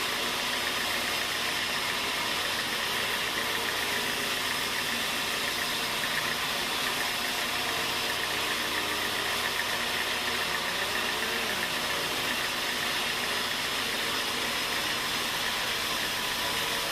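Sawmill machinery running steadily: an engine-driven saw rig with a continuous mechanical hum and hiss that does not change.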